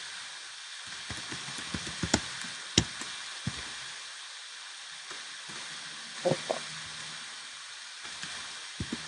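Computer keyboard keystrokes: scattered sharp clicks, a cluster in the first few seconds and a few more later, over a steady background hiss.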